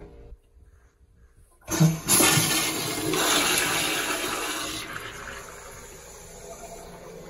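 Gerber Ultra Flush pressure-assisted toilet flushing. A sudden loud whoosh comes about two seconds in, followed by a strong rush of water for about three seconds, which then fades to a quieter steady hiss.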